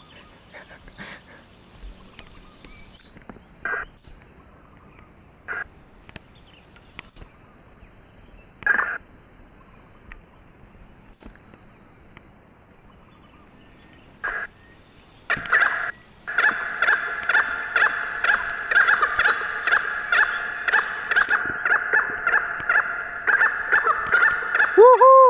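Junglefowl calling: a few short, separate calls in the first half, then, about two-thirds of the way in, a loud, continuous run of rapidly repeated harsh calls.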